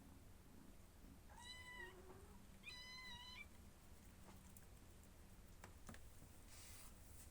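A cat meowing twice, two short high calls about a second apart, followed by a few faint clicks.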